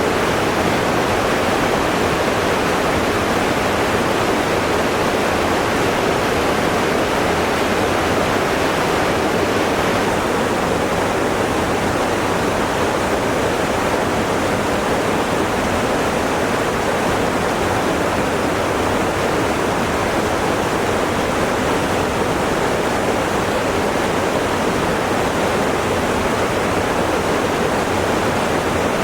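Water rushing steadily, an even unbroken hiss without surges.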